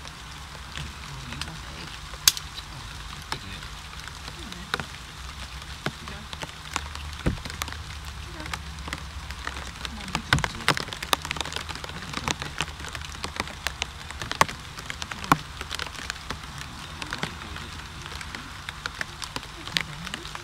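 Rain falling steadily, with many sharp drops ticking on nearby surfaces, over a low steady hum.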